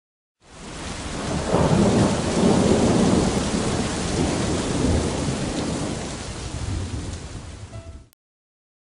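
Thunderstorm: rain with a long rolling rumble of thunder that swells about a second in, slowly fades, and cuts off suddenly near the end.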